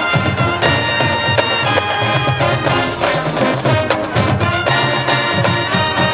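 High school marching band playing a brass-led arrangement over drums and percussion, with full, sustained chords.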